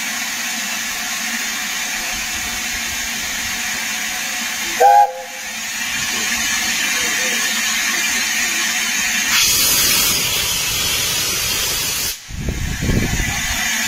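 LNER A4 Pacific No. 4498 Sir Nigel Gresley standing with steam hissing steadily from its open cylinder drain cocks. About five seconds in, its chime whistle gives one short, loud toot. Near the end there is low rumbling from the microphone being handled.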